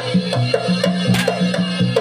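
Live jaranan gamelan music: kendang drum and struck, ringing pitched percussion in a fast, even rhythm of about six strokes a second.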